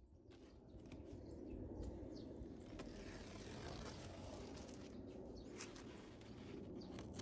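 Faint outdoor background noise, a steady low rumble and hiss, with a few light taps and scuffs from gloved hands handling a large cardboard box.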